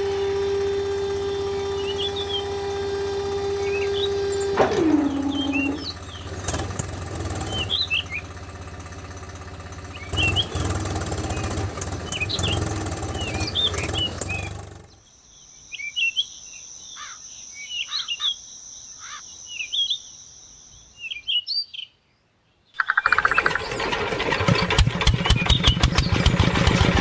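Small birds chirping over a small motor's steady whine, which drops in pitch and stops about five seconds in. After a short silence near the end, a motor starts up again with a fast, even rattle.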